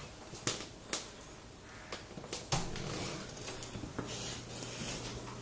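Footsteps and camera handling while walking: a handful of sharp clicks and knocks over a faint steady low hum.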